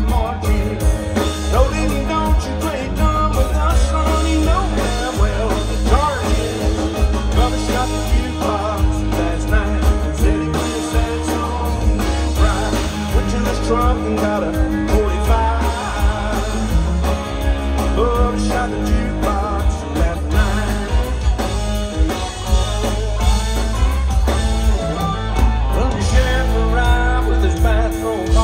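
Live country band playing through a PA: electric and acoustic guitars, bass and drums keeping a steady beat, with a sung lead vocal.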